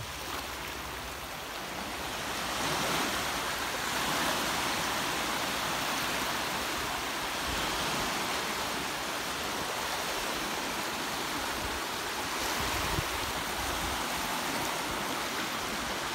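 Small waves breaking and washing up a sandy beach: a steady surf wash that grows a little louder about three seconds in.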